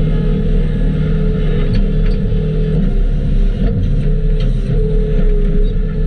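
Skid steer engine running steadily with a steady hum, with a few faint clicks over it.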